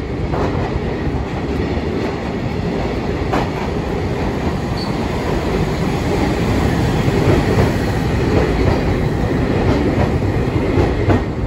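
Hiroshima Electric Railway 3100-series tram 3103 running in along the rails at low speed and passing close by, with occasional sharp clacks of the wheels over the track. The running noise grows somewhat louder in the second half as the tram draws level.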